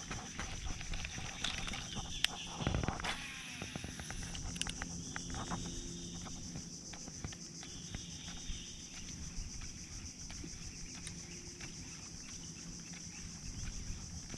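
Steady high-pitched insect buzzing, with a cluster of clicks and knocks about two to three seconds in over a low background rumble.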